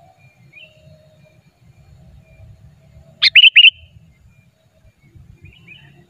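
Sooty-headed bulbul calling: one loud burst of three or four quick notes about three seconds in, with fainter chirps before and after.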